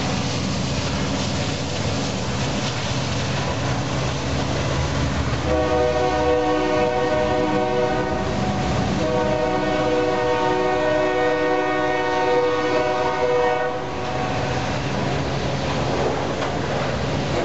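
Union Pacific freight train passing close by: a trailing diesel locomotive's engine running, then covered hopper cars rolling and clacking on the rails. About five seconds in, the lead locomotive's multi-chime air horn sounds two long blasts, the second one longer, with a brief gap between them.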